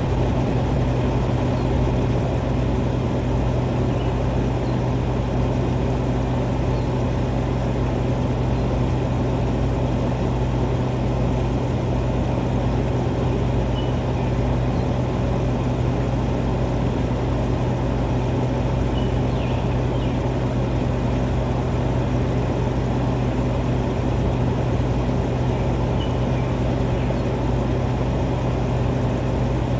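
Steady machine drone with a constant low hum that does not change throughout, and a few faint short high chirps over it.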